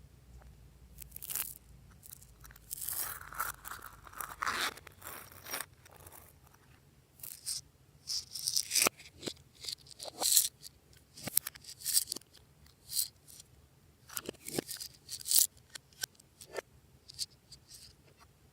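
Glossy slime being squished and stretched by hand, giving irregular sticky crackles, clicks and pops in uneven bursts.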